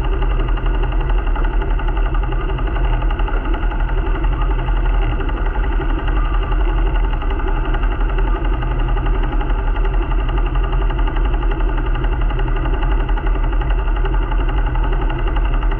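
A sailing yacht's inboard diesel engine running steadily under way, a loud even drone with a fast, regular pulse.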